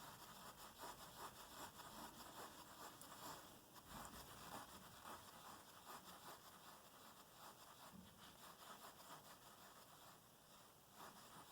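Faint, irregular scratching and light pattering of a red Maine Coon kitten's claws and paws on a surface as it plays.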